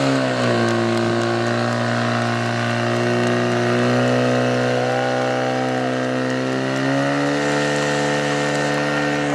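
Portable fire pump's engine running at high revs under load, a steady engine note that settles just after the start, rises slightly about seven seconds in, and falls as it throttles back at the very end.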